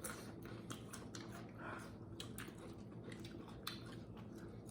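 A person chewing and crunching food close to the microphone: a string of small, irregular crackles and clicks.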